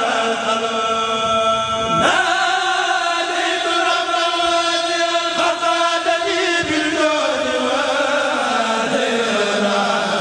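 A group of men chanting a Mouride khassida, devotional Arabic verse, in unison, with long drawn-out notes that shift in pitch from phrase to phrase. A new phrase begins about two seconds in.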